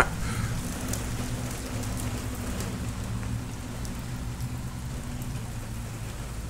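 Steady rain on a tin roof overhead, an even hiss with scattered drop ticks, over a steady low hum.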